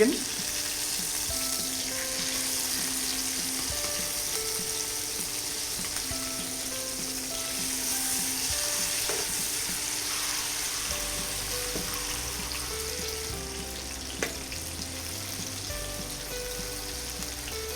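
Chicken breast, marinated in coriander pesto, sizzling steadily as it pan-fries in medium-hot oil.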